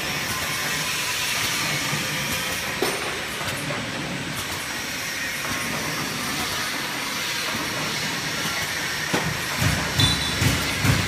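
Semi-automatic carton box packing machine running: a steady mechanical clatter with hiss, joined about nine seconds in by a regular knocking about twice a second as the machine cycles.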